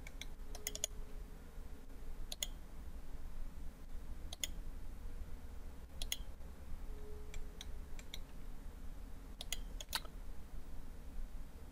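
Computer mouse clicks: single sharp clicks every couple of seconds, with a quick run of clicks near the start and again near the end, over a low steady hum.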